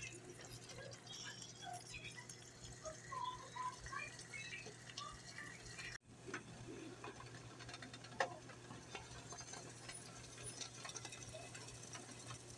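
Sloppy joe meat sauce simmering in a skillet: faint, scattered small pops and bubbling over a steady low hum, with one sharp click about eight seconds in.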